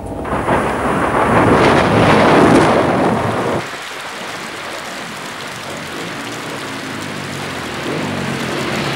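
A thunder rumble breaks out suddenly, swells for about three and a half seconds and cuts off abruptly, leaving heavy rain falling steadily.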